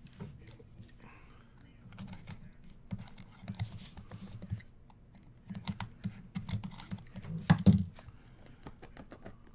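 Irregular light clicks and taps with soft knocks, the loudest about three-quarters of the way through: hands handling and opening a trading-card box and its packaging.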